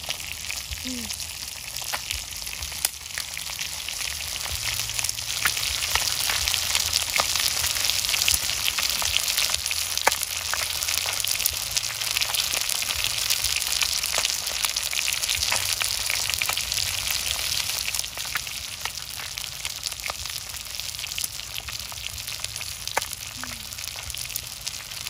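Whole fish sizzling on a hot stone slab over a wood fire: a steady hiss with many scattered pops and crackles, growing louder a few seconds in.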